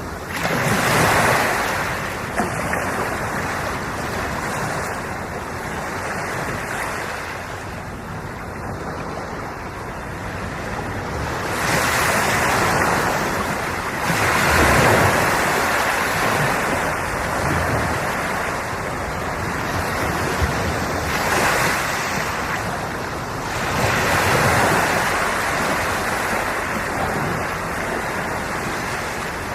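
Sea waves breaking and washing in, a steady surf hiss that swells into louder surges several times at uneven intervals.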